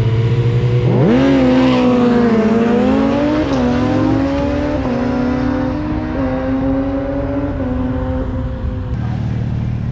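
An engine idling, then revving up sharply about a second in and held at high, slightly wavering revs through a full-throttle drag run, dropping back to idle near the end.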